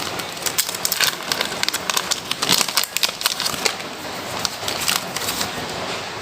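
Plastic packaging crinkling and rustling as it is handled: a dense, irregular run of small sharp crackles.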